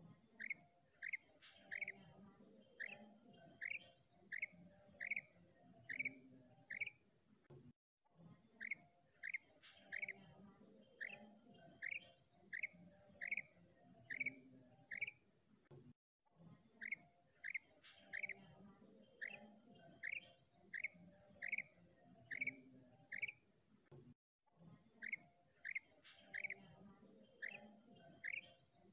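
Female common quail calling: a steady run of short rising notes, about one and a half a second, over a steady high-pitched insect-like buzz. The sound cuts out briefly about every eight seconds and starts again, the same call sequence repeating.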